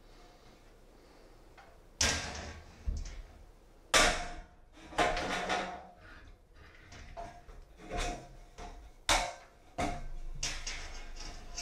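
About six sharp knocks and clacks, spaced a second or more apart, followed near the end by a rustling scrape: a steel CD drywall ceiling profile, its hanger bracket and a holding magnet being handled and set in place.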